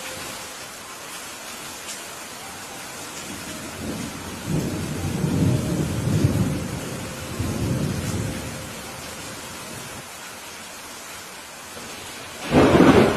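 Steady rain falling, with a long low rumble of rolling thunder a few seconds in, then a sudden, louder thunderclap near the end.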